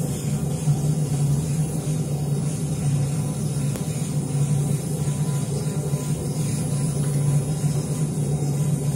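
Steady low hum of woodworking machinery running, with a faint high hiss over it.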